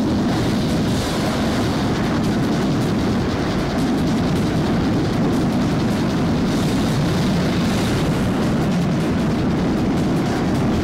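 Wind rushing and buffeting over a handheld camera's microphone during a parachute descent, a loud steady roar.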